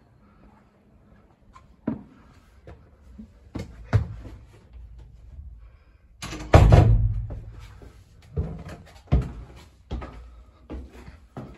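Footsteps climbing wooden stairs: irregular heavy treads and knocks, roughly one a second, with one louder thud about six seconds in that rings on low for a moment.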